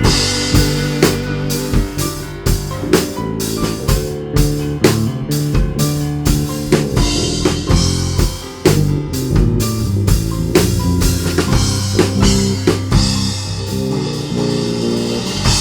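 Live praise band playing an instrumental passage: drum kit keeping a steady beat over electric guitar and bass chords, with no singing.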